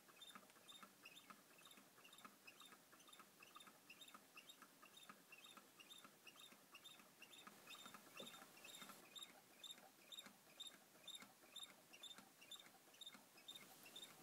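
ThinkGeek Inpro Solar low-temperature-differential Stirling engine running: a faint, even squeaky tick about three times a second from its turning mechanism.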